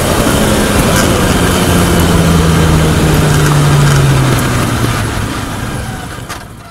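Onboard sound of a Reynard F391 single-seater's Peugeot Mi16 four-cylinder engine coming off the throttle, its note falling as the car slows from about 150 km/h, under heavy wind and road noise. The sound fades out over the last couple of seconds.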